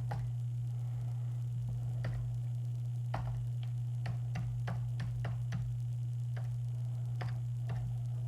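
Scattered computer keyboard keystrokes and mouse clicks, irregular single clicks with a quick run of them in the middle, over a steady low electrical hum.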